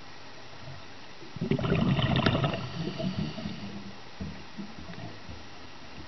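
Underwater sound of a scuba diver breathing out through the regulator: a loud rush of bubbles about a second and a half in, lasting about a second, then trailing off into scattered gurgles.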